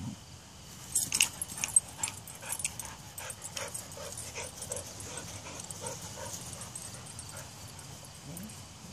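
Dog whimpering: short whines repeated about twice a second. A few sharp clicks come about a second in.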